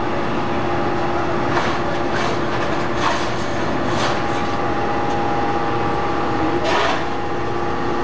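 Y81F-3150 hydraulic metal scrap baler running, a steady machine drone with a constant whine, broken by a handful of scattered metal clanks.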